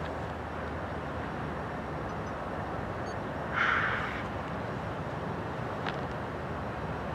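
Low, steady rumble of a distant diesel freight train drawing near, led by GE Evolution Series locomotives. About halfway through there is one brief, higher-pitched sound lasting about half a second.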